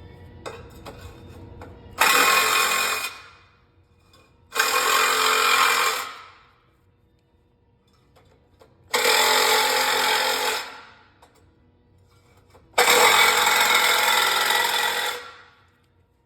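A bladed power tool cutting into a hollow aluminum post, squaring the ends of an outlet opening. It runs in four separate bursts of about two seconds each, and each one trails off as the tool winds down.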